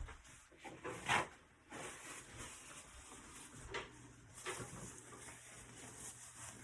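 A few knocks and clunks of kitchen things being handled, the loudest about a second in, with a low steady hum joining about halfway through.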